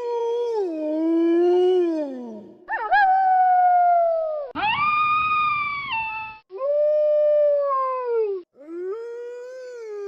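Wolves howling: about five long pitched howls one after another, each a couple of seconds long and mostly falling in pitch at its end, starting and stopping abruptly between calls.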